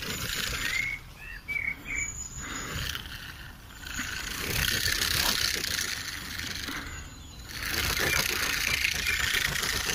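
Crested porcupine rattling its raised quills, a dry rustling hiss that comes in spells, as a warning display to scare off a threat. A few short bird chirps sound about a second in.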